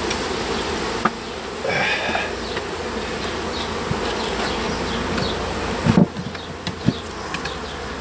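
Honey bees from a newly installed package buzzing steadily as a swarm around the hive, with a few sharp knocks about a second in and around six and seven seconds.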